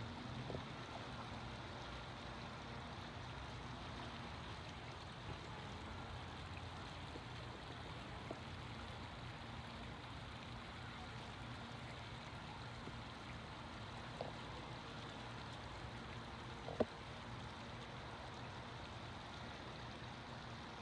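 Small creek running and splashing through a breached beaver dam, a steady rushing of water, with a few short sharp sounds in the second half.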